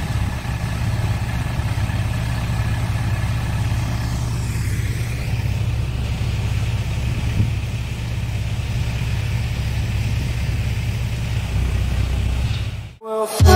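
Diesel engine of farm harvest machinery running steadily with a low, even hum. It cuts off abruptly shortly before the end.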